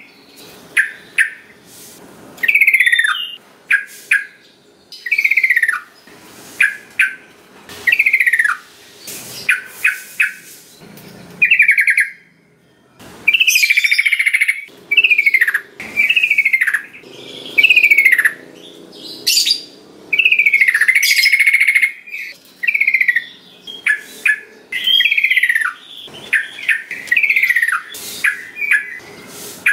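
Sooty-headed bulbul (trucukan) singing: a run of short, bubbly phrases of downslurred whistled notes, repeated with brief pauses between them.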